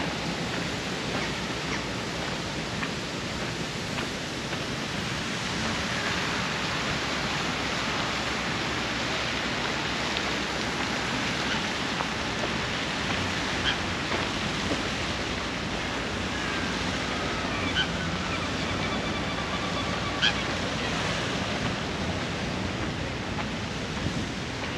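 Steady rushing outdoor noise, with a few sharp clicks and brief faint high chirps in the second half.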